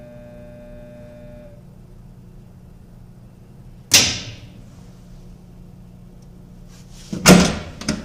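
Steady low electrical buzz from a Hobart WM-1D commercial dishwasher switched on with its booster heater; the machine only buzzes and does not fill, the fault being chased. Two sharp knocks break in, one about four seconds in and a louder cluster near the end.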